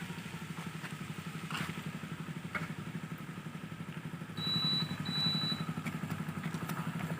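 A small engine idling steadily with an even, rapid pulsing beat. A little after the middle, a thin high tone sounds in two short parts.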